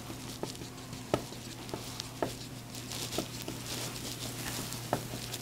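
Dry-erase marker writing on a whiteboard: a handful of short, irregularly spaced ticks and taps as the pen strokes the board, over a steady low room hum.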